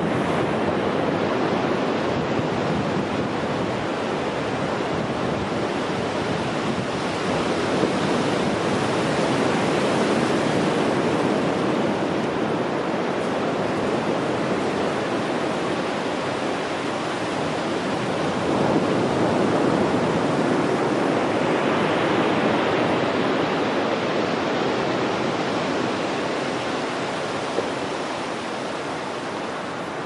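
Ocean surf on a sandy beach: waves breaking and their wash running up and back over the sand, a continuous rushing noise that swells louder as breakers come in, most clearly about a quarter of the way in and again past the middle.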